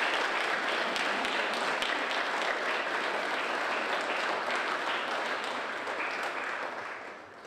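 Audience applauding, many hands clapping steadily, dying away near the end.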